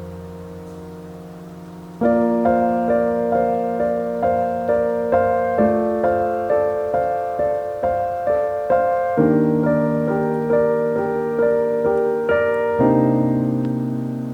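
Background piano music: a soft sustained chord, then a gentle run of evenly paced notes about two to three a second over changing chords, ending on a held chord.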